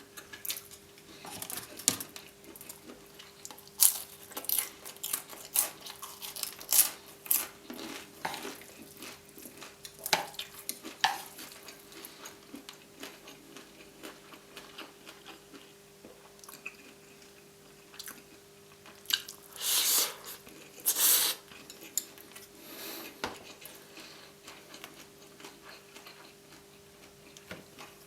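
Eating crispy fried noodles close to the microphone: utensils clicking and scraping on the plate with chewing, busiest in the first half, and two longer slurps about twenty seconds in. A faint steady hum runs underneath.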